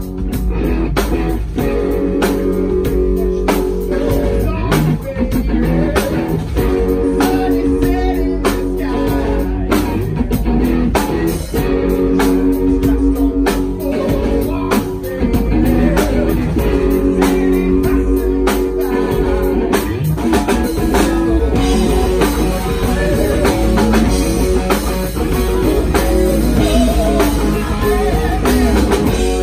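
Live rock band playing: electric guitars, bass guitar and drum kit, with a man singing at the microphone.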